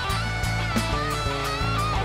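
Live rock band playing without vocals: an electric guitar lead with bent, held notes over bass guitar and a steady drum beat.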